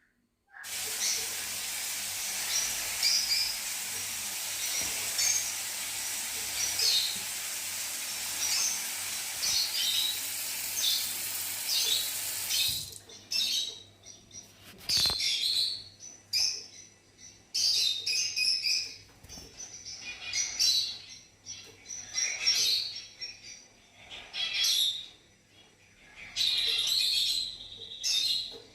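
Fischer's lovebirds chirping in quick repeated high bursts. A steady hiss lies under them at first and cuts off suddenly a little under halfway through, leaving the chirps in separate clusters.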